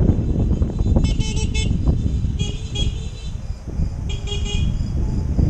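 Vehicle horns beeping in short bursts: a quick run of beeps about a second in, then two more short groups, over a steady low rush of wind and road noise.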